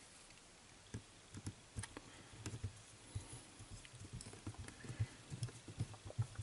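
Faint, irregular clicks and soft knocks of a screwdriver turning a small screw while fingers hold and press a small circuit board onto a cassette tape mechanism. The knocks come more often in the second half.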